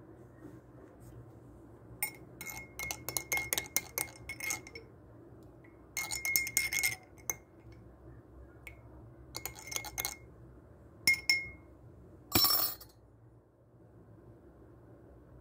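A spoon stirring in a cup, clinking quickly against its sides in four bouts, each clink leaving a short ringing note. A brief, noisier rattle comes about twelve seconds in.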